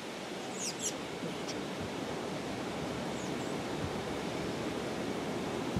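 Steady rushing wind noise with a couple of faint high chirps about a second in.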